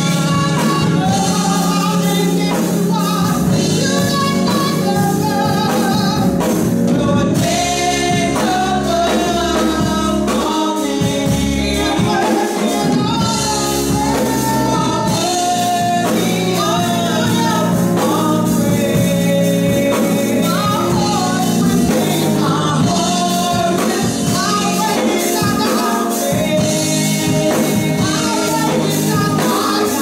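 Two women singing a gospel song into microphones over continuous instrumental accompaniment.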